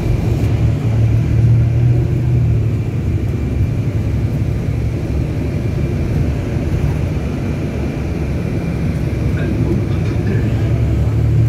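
Steady engine and road rumble heard from inside a moving vehicle's cabin, with a faint steady high tone above it.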